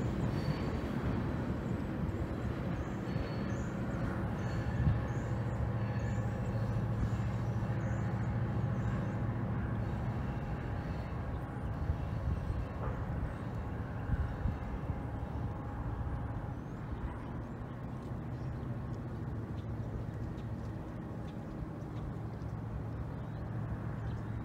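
Diesel locomotive engine running with a steady low hum as a freight train moves away, growing slowly fainter.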